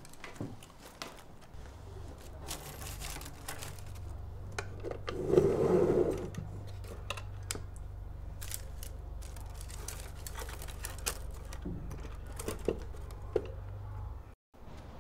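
Shadow puppets on bamboo rods and a wooden box being handled: scattered light clicks and clacks of sticks and wood, with a louder rustling clatter about five seconds in, over a low steady hum.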